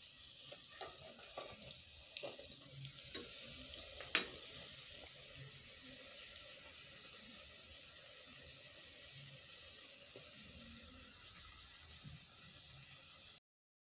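Breaded bread sandwiches shallow-frying in hot oil in a pot: a steady sizzle with small crackles and one sharp click about four seconds in. The sizzle stops abruptly near the end.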